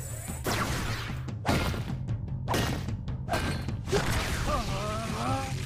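Cartoon energy-blast sound effects, four or five quick whooshing shots, over action background music with a steady bass. A short wavering pitched sound follows near the end.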